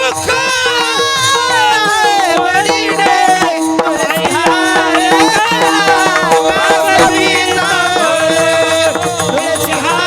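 Man singing a devotional kirtan melody in long, gliding, ornamented notes, over a steady drone and percussion.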